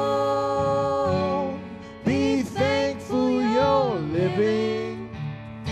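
Live acoustic country song: two voices singing over a strummed acoustic guitar. A long held sung note fades out about a second and a half in, then another sung line follows.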